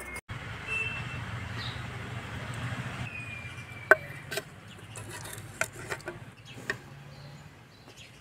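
Steel ladle clinking and scraping against a clay cooking pot a few times, the sharpest knock about four seconds in, over a steady low rumble.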